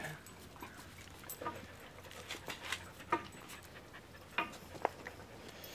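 A dog panting, with scattered short clicks and scuffs.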